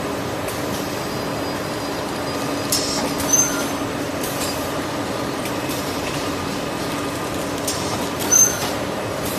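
Automatic kitchen towel roll packing machine running with a steady mechanical hum. Two brief sharp hissing clicks come through, about three and eight seconds in.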